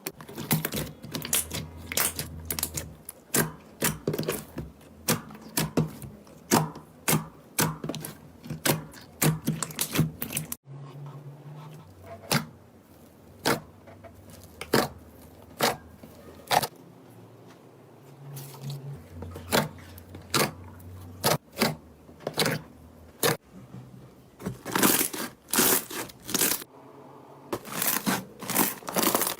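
Slime being squeezed and pressed by hand, giving a quick run of sharp wet clicks and pops, with denser crackling stretches near the end.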